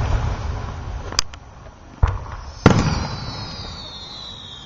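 Aerial firework shells bursting: a rumbling boom dying away, then a sharp crack and two more bangs, the last followed by a long rumble. From about halfway a high whistle slowly falls in pitch.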